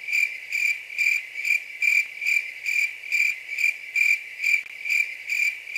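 Crickets chirping: one high, even-pitched chirp repeated steadily about twice a second.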